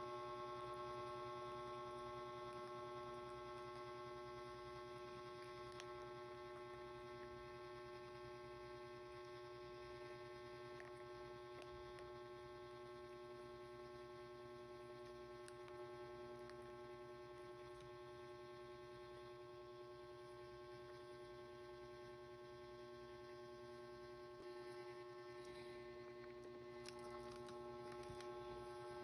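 Steady, quiet electrical hum made of a few fixed tones, with a few faint clicks scattered through it.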